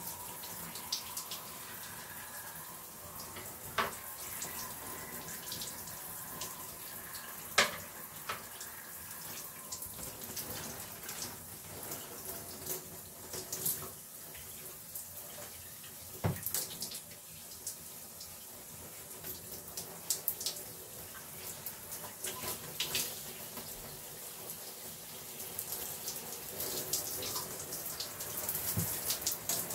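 Shower water running, a steady spray hiss, with a few sharp taps and splashes, the loudest about seven and a half seconds in.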